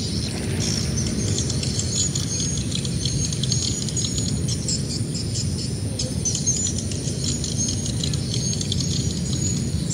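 Insects and birds chirping in a flooded rice field, many short high calls with a few held notes, over a steady low rumble.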